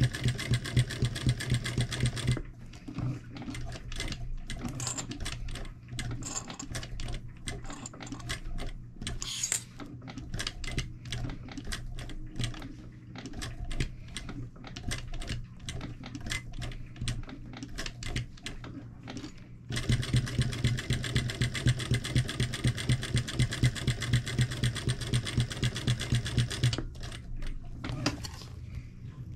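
Sewing machine stitching thick clear plastic, run very slowly: a fast, even run of stitches at the start, then a long stretch of separate, slow clicking stitches, then another fast run about two-thirds of the way in that stops a couple of seconds before the end.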